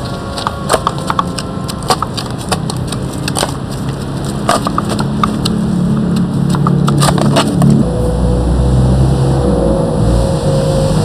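Irregular sharp clicks and crackles over a low rumble, thinning out after about eight seconds, when a steady low drone and a held tone come in.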